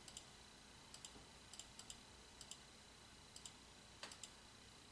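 Near silence broken by faint computer-mouse or keyboard clicks, many in quick pairs, about a dozen in all.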